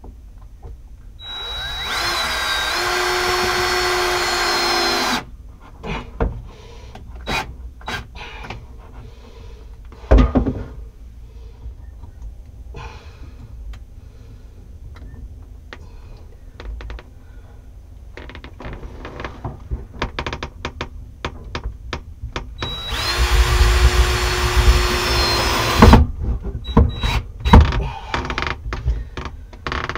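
Power drill driving screws: the motor whines steadily in two runs, about four seconds long near the start and about three seconds long near the end. Between the runs come scattered clicks and knocks of handling, with one louder knock about ten seconds in.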